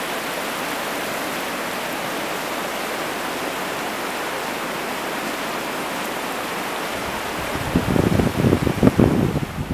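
Steady rushing of a fast-flowing stream over its stony bed. In the last couple of seconds, gusts of wind buffet the microphone with low rumbling thumps.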